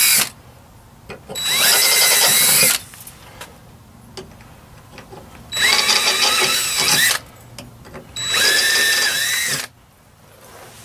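Cordless drill with a larger bit opening up screw holes in a metal grill frame, run in short bursts of about a second and a half, three times. Its pitch rises as the motor spins up at the start of each burst.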